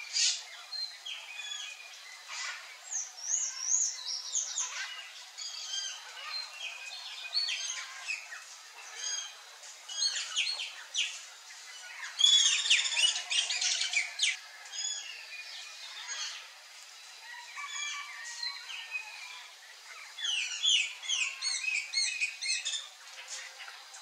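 Birds chirping and calling: many short, high notes throughout, with a dense rapid cluster about twelve seconds in and another a few seconds before the end.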